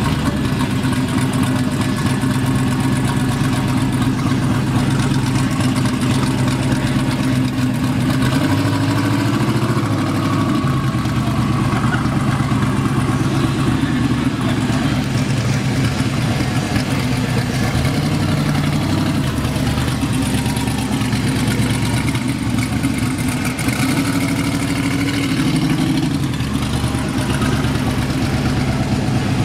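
Custom 1970 Chevrolet Chevelle SS convertible's engine idling steadily, its pitch lifting briefly a few times with light throttle.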